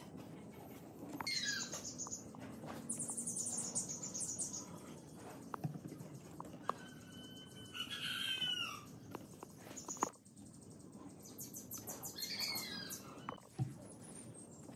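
Birds chirping and calling, with short curving calls and bursts of fast, high trills, and a few light knocks of small wood pieces being set down on a wooden workbench.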